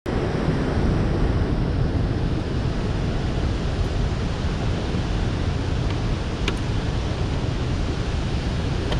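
Steady rushing noise of water pouring through a dam spillway's open flood gates, mixed with wind buffeting an action camera's microphone.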